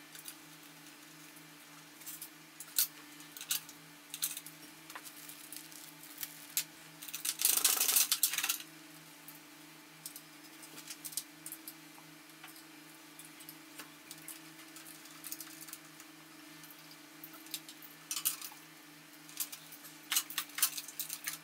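Scattered clicks and clinks of metal parts and tools being handled on an aluminium extrusion frame, with a longer rattling scrape about seven seconds in that is the loudest part, over a steady low hum.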